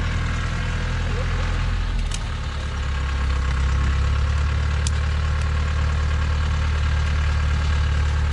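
Engine of a lorry fully laden with acacia logs, running under load as it crawls through mud with its wheels sunk to the rims. About three seconds in, the engine note deepens and grows louder.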